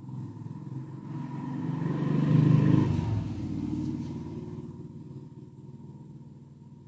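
A motor vehicle passing by: its low engine rumble swells to a peak about two and a half seconds in, then fades away slowly.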